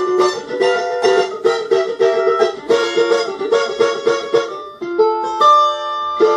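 Emerson Brasa model electric cavaquinho, a small four-string steel-string instrument, played with quick strokes, about four a second. About five seconds in it changes to a few chords left to ring.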